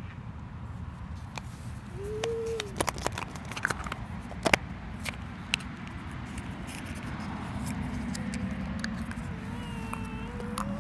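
Plastic surprise egg being pulled apart by hand: a run of sharp plastic clicks and snaps over a steady background hum, the loudest about four and a half seconds in.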